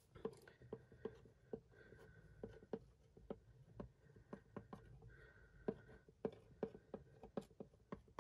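Sharpie permanent marker writing on a plastic bottle: a quick, faint run of short scratchy strokes, a few longer ones drawn out with a thin squeak.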